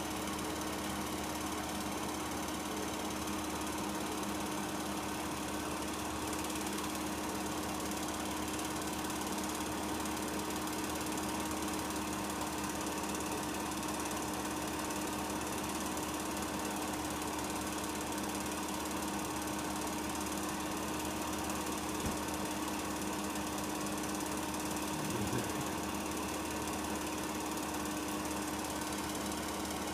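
8 mm film projector running: a steady mechanical whirr with a constant hum.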